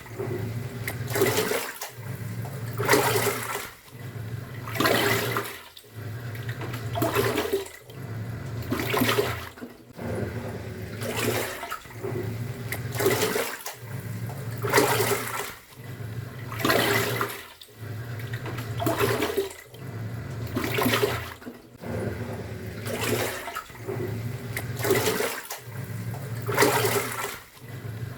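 Top-loading washing machine agitating its load: the pulsator motor hums as it turns for about a second and a half, stops briefly and turns again, roughly every two seconds, with water sloshing and surging in the tub at each stroke.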